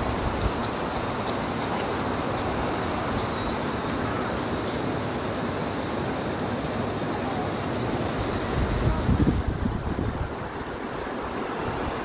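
Steady rushing outdoor noise, with low gusts of wind buffeting the microphone about nine seconds in.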